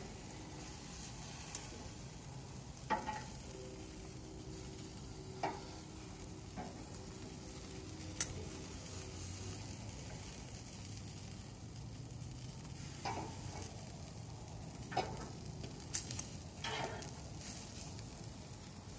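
Chicken drumsticks frying in a pan, a steady sizzle. A utensil taps or clicks against the pan now and then, about seven times.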